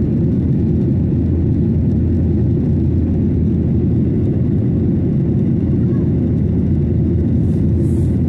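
Steady low rumble of airliner cabin noise in cruise flight, heard from inside the cabin by a window seat, even and unchanging.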